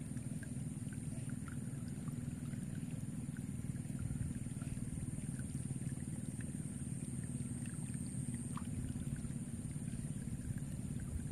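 Open-air ambience: a steady low rumble of wind on the microphone, a continuous high-pitched drone, and scattered faint short chirps.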